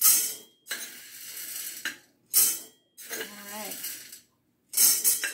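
Dry ingredients rattling as they are scooped with a measuring cup and poured into a glass mason jar to fill it to the top. There are three louder pours, about two and a half seconds apart, with quieter rattling between them.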